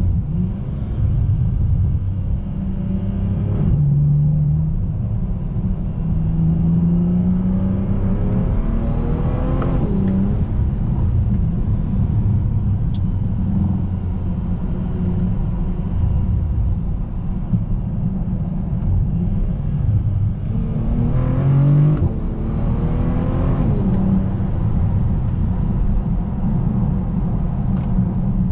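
2019 Bentley Continental GT driving, heard from inside the cabin: a steady low engine and road rumble, with the engine note rising under acceleration twice, building to about ten seconds in and again a little after twenty seconds.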